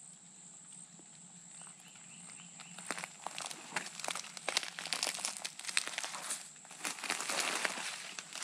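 Footsteps crunching and crackling through dry leaf litter and pine needles, starting about three seconds in and growing denser toward the end.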